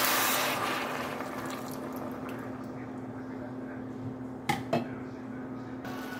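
Vegetable broth pouring from a plastic jug into a hot pot of sautéed vegetables, the stream ending about half a second in, followed by quieter liquid sounds over a steady low hum. Two quick knocks come near the end, likely the bamboo spoon against the stainless pot.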